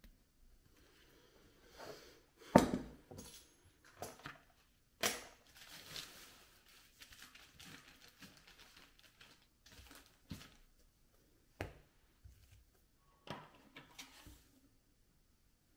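Kitchen items handled on a counter: irregular knocks and clatter, like dishes or a baking tray being set down, with soft rustling in between. The loudest knock comes about two and a half seconds in, with further clunks near five seconds and near the end.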